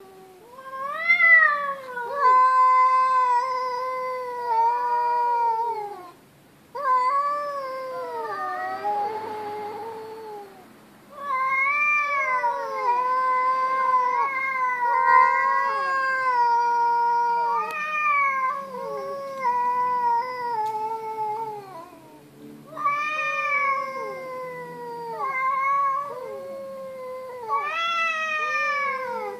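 Cats caterwauling: a series of long, wavering yowls, each drawn out over several seconds and sliding up and down in pitch, with brief pauses about six and eleven seconds in. It is the yowling of cats in the mating season.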